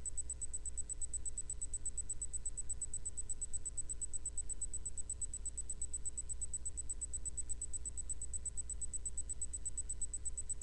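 Steady low electrical hum with a faint high-pitched whine that pulses rapidly, from an idle CB radio station with no traffic coming through.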